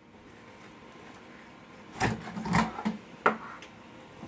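A few hard knocks and clunks from the shop vac's parts being handled, after about two seconds of quiet; the sharpest knock comes just past three seconds in.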